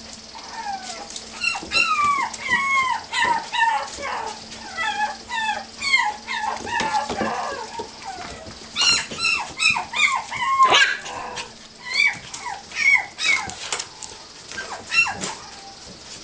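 Dachshund–poodle mix puppies whimpering and yipping as they play: many short high cries, each falling in pitch, coming in quick clusters, with sharp clicks between them.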